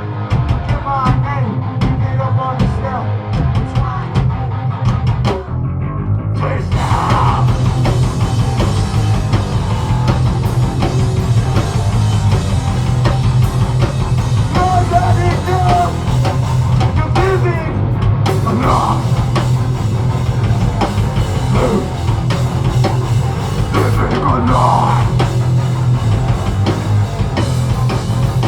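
Heavy rock band playing live at full volume: distorted electric guitars, bass and drum kit in a continuous song.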